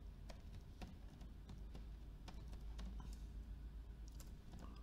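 Computer keyboard typing: faint, irregular keystrokes over a low steady hum.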